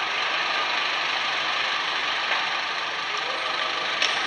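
Steady street traffic noise, vehicle engines running, with one short click near the end.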